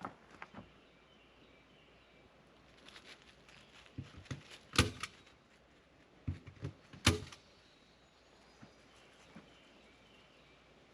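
A few scattered sharp knocks and clicks of hand work on a door, with quiet in between; the two loudest come about five and seven seconds in, with duller thumps just before each.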